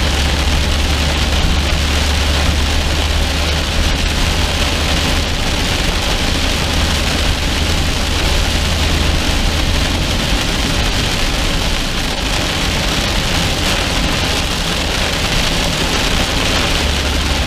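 Heavy rain pattering on a moving car's windshield and roof, heard from inside the cabin as a steady hiss. Under it runs the car's low road and engine rumble, which eases about ten seconds in and comes back near the end.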